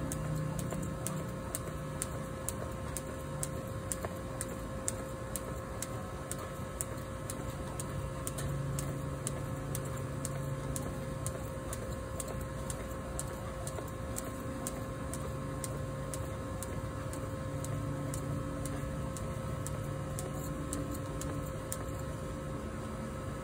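Jump rope slapping a concrete patio on each turn, a steady rhythm of light ticks at about two to three a second, over a steady hum.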